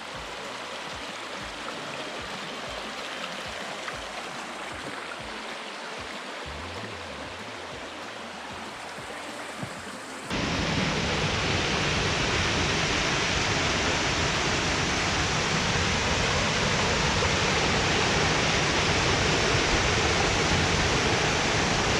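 Rushing water of a forest stream and waterfall, a steady hiss-like roar. About ten seconds in it jumps suddenly louder and brighter, and stays that way.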